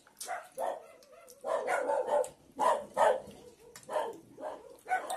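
Dog barking repeatedly, a run of short barks a few per second, loudest in the middle.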